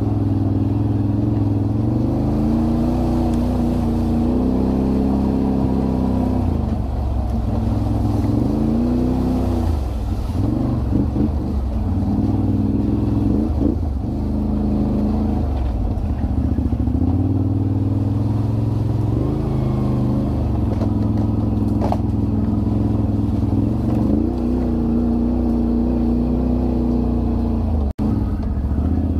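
Off-road vehicle engine running under changing throttle, its pitch rising and falling again and again. The sound drops out briefly near the end.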